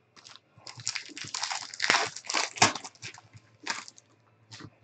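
A foil trading-card pack being torn open, the wrapper crinkling and crunching for a couple of seconds, then two sharp clicks as the cards are handled near the end.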